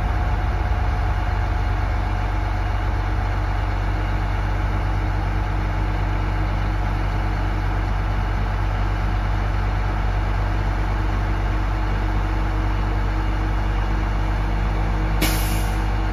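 Diesel engine of a Terex RT175 rough terrain crane idling steadily, with a short hiss near the end.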